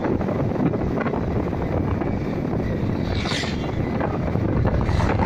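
Wind buffeting a helmet-mounted camera's microphone on a moving motorcycle: a steady, heavy rumble, with a brief hiss a little over three seconds in.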